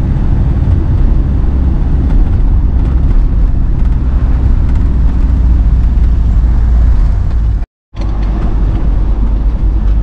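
Engine and road noise heard inside a moving car's cabin: a steady low rumble that cuts out completely for a moment about three quarters of the way through.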